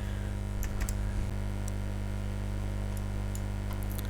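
Steady electrical mains hum, with a few faint computer clicks scattered through it.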